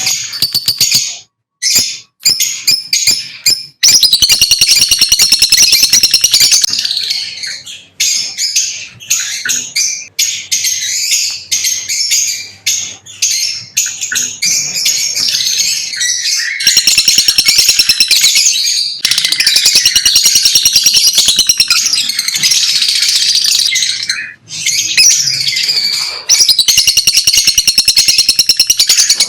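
Lovebirds chirping loudly, a dense run of rapid, shrill high-pitched chirps that pauses briefly a few times.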